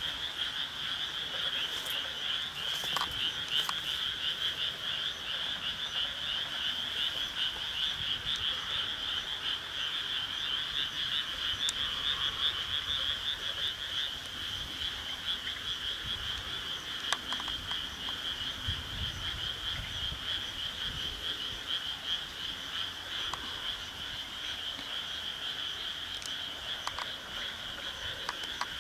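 A chorus of frogs calling without a break, a dense, rapidly pulsing trill, with a few faint clicks.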